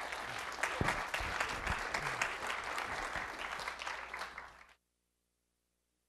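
Audience applauding in a lecture hall. The clapping cuts off abruptly a little under five seconds in.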